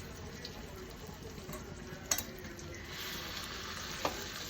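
Marinated chicken frying in butter and ghee in a pan, a steady sizzle that gets louder about three seconds in, with two sharp knocks, one about two seconds in and one near the end.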